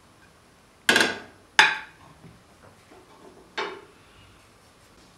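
Kitchenware clinking three times, each a sharp knock with a brief ring: two close together about a second in, a third a couple of seconds later.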